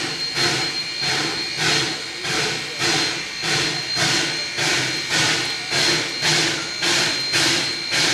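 Huckleberry Railroad steam locomotive No. 152 working along slowly, its exhaust chuffing in an even beat of about three chuffs every two seconds, over a steady hiss of steam.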